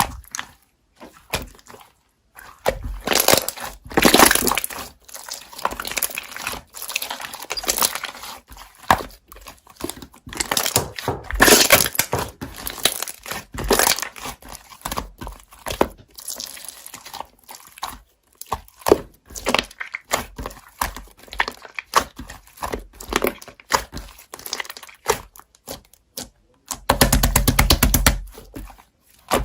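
Slime being squished and pressed by hand: irregular crinkling, clicking and popping. Near the end comes a louder, continuous stretch of about two seconds.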